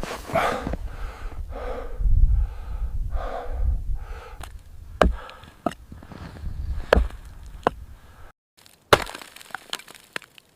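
Rhythmic crunching strokes, about two a second, then a series of sharp cracks and knocks. The sound cuts out briefly a little after eight seconds, and a loud sharp knock follows.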